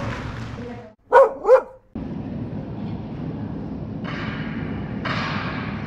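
A dog barks twice in quick succession, two short barks about a second in.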